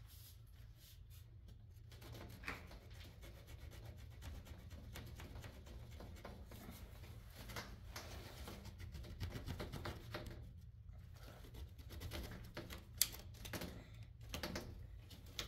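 Faint handling noises, rubbing and scattered clicks and knocks, over a low steady hum, with one sharper click near the end.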